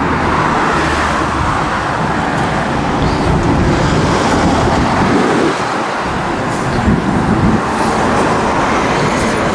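Road traffic going by: a steady rush of tyre and engine noise.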